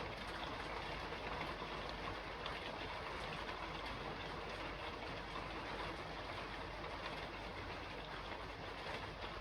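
Steady rain falling on a roof: an even, continuous hiss of rain with faint ticks of single drops through it.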